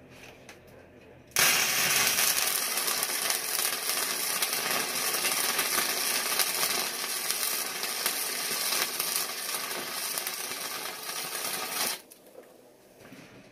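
Arc welder laying a weld bead on steel angle iron: the arc strikes about a second in with a sudden, loud, steady crackle and cuts off abruptly near the end, about ten seconds later.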